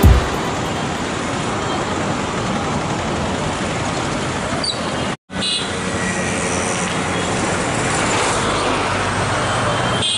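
Road traffic noise: a steady rush of passing vehicles, with a short low thump at the very start and a brief dropout to silence about five seconds in.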